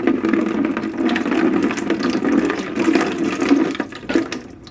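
Water draining out of a toilet tank through the loosened fill valve opening, splashing steadily into a bucket, easing off near the end.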